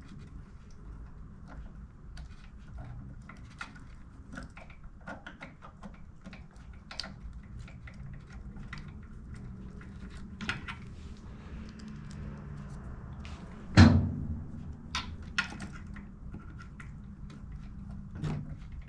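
Small clicks, taps and scrapes of tools and small carburetor parts handled on a workbench while the main jet is refitted, over a low steady hum, with one loud knock about three-quarters of the way through and a lighter one near the end.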